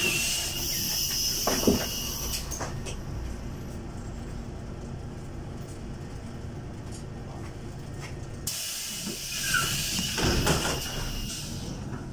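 City bus's pneumatic passenger doors working at a stop: a long hiss of released compressed air with a clunk in the first two seconds, then a second hiss about eight seconds in with another clunk, over a low steady rumble.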